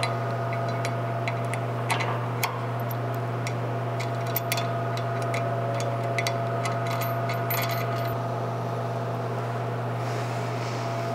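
Small metallic clicks and clinks as a bolt and nut are fitted through a sway-bar end link's rod end and onto the bar arm, a few louder taps about two seconds in and again past four seconds, over a steady low hum in the shop.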